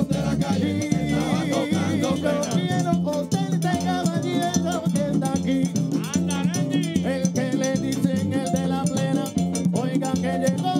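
Live Puerto Rican plena: panderos (hand-held frame drums) beating a steady rhythm under a scraped güiro, with men singing into microphones.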